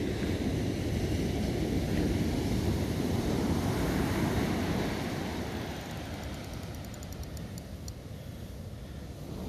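Surf and wind buffeting the microphone, a dense low rush that swells over the first few seconds and then eases. From about six to eight seconds in comes a quick run of light clicks from the spinning reel.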